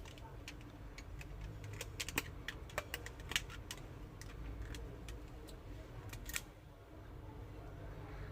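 Scattered light clicks and taps as a smartphone is handled on the workbench while its freshly glued screen is being clamped, over a low steady background hum.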